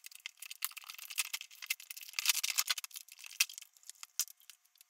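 A cardboard cosmetics gift box being opened by hand, with a dense run of small crackles, scrapes and clicks that is busiest about two to three seconds in, as the flaps are worked loose and the clear plastic insert tray of sample tubes is handled.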